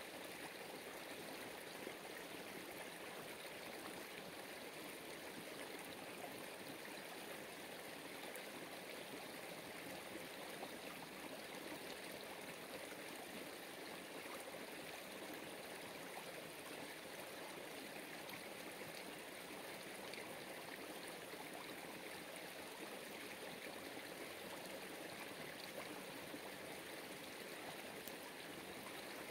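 Steady rushing of flowing water, an unbroken stream-like wash with no rhythm or distinct splashes.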